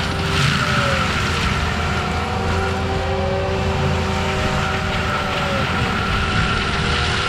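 Forestry mulcher on an ASV RT-120F compact track loader running steadily: a loud engine drone with a whine that slowly drifts up and down in pitch.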